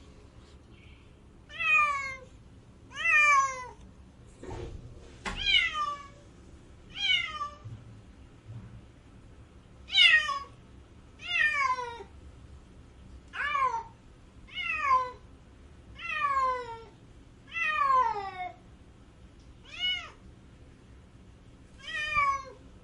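A domestic cat crying: a long run of about fourteen meows, one every second and a half or so, each rising briefly and then falling in pitch.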